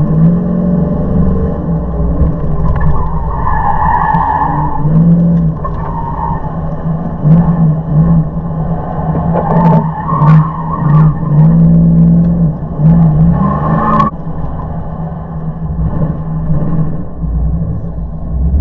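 A 1999 Dodge Dakota R/T's 5.9-litre V8 is driven hard through an autocross course, revving up and lifting off again and again. A few short bursts of tire squeal come through in the corners.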